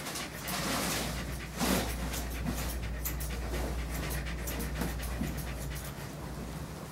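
A dog panting quickly and steadily, in short rapid breaths, over a low steady hum.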